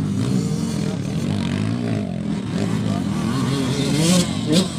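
Several motocross dirt-bike engines revving up and down on the track, overlapping, with one revving sharply higher and louder near the end.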